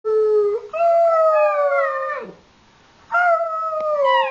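Eight-week-old Alaskan malamute puppy howling: two long howls, each sliding slowly down in pitch, with a short pause between them a little after two seconds in.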